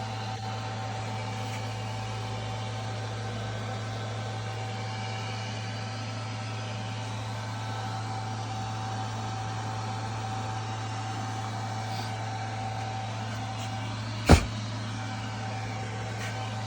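Steady low mechanical hum, with one sharp knock near the end.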